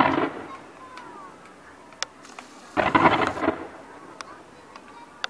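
Fireworks display going off: a loud crackling burst right at the start and another about three seconds in, each under a second long, with scattered single sharp pops between.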